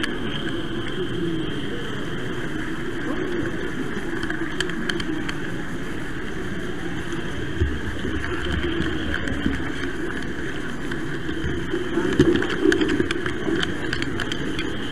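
Model train running on the layout's track, heard from the camera riding on it: a steady motor and wheel hum with scattered small clicks, and a few louder bumps near the end.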